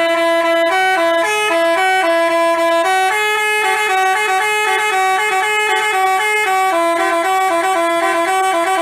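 Basuri telolet bus horn playing a continuous tune: a quick run of short, stepped horn notes with no break between them, at a steady loud level.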